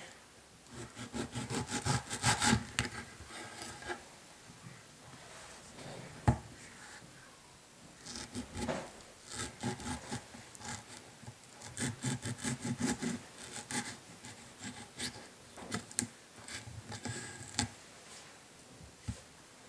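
Kitchen knife sawing through mango flesh and scraping along the skin on a wooden cutting board, in repeated bursts of quick strokes. One sharp knock about six seconds in.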